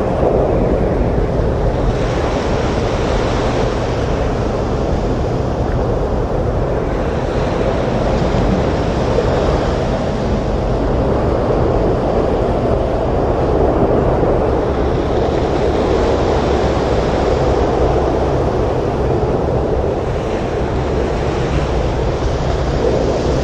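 Storm surf with wind: a continuous rush of breaking waves that swells and eases every several seconds.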